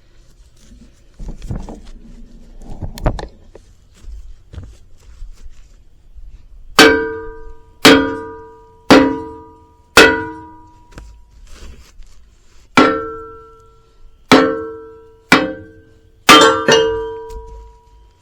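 Hammer blows on the steel of a skid steer wood splitter, each striking with a ringing metallic clang. After a few faint knocks, about nine hard blows come at roughly one a second, with a short pause in the middle and a quick double near the end. The blows are knocking loose a partly cut piece.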